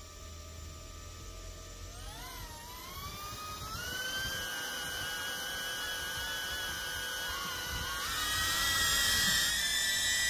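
The CaddxFPV Protos FPV drone's small motors and ducted propellers whine steadily. About two seconds in the pitch rises as the motors speed up. Near the end the whine gets louder and higher as the drone lifts off.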